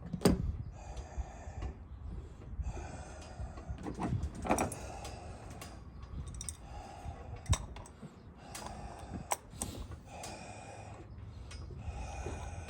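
Hand tools and metal fuel-line fittings being worked: short bouts of scraping and rubbing with pauses between them, and scattered sharp clicks and knocks.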